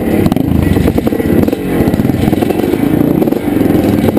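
1981 Can-Am MX-6B 400's single-cylinder two-stroke engine, heard up close from the bike, running at low speed with the engine note rising and falling as the throttle is worked.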